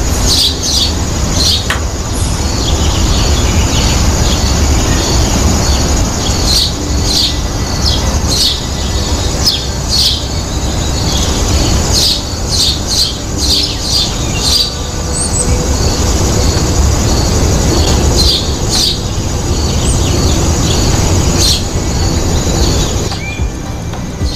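Birds chirping and calling in many short, high notes over a steady low rumble, with a faint high note pulsing about twice a second underneath.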